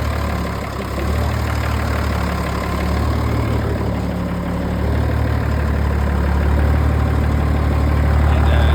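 M35A2 deuce and a half's multifuel turbocharged inline-six diesel idling steadily through a straight-piped exhaust with no muffler, slightly louder near the end.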